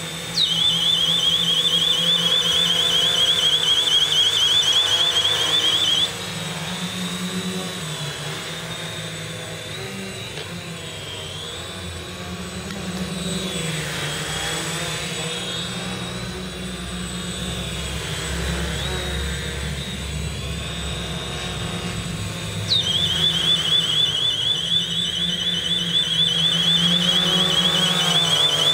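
A small plastic alarm siren mounted on a quadcopter sounds a loud, rapid, high-pitched warble for about six seconds, stops, and comes back on a few seconds before the end. Under it the quadcopter's motors and propellers hum without a break, their pitch rising and falling with the throttle.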